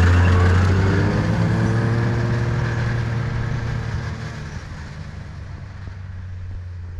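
A motor vehicle's engine running, rising in pitch just as it starts and then holding steady while the sound fades away over several seconds.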